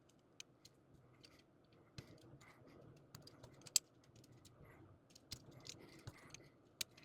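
Small plastic model-kit parts being handled and fitted together: a scatter of faint, light clicks, with one sharper click about four seconds in.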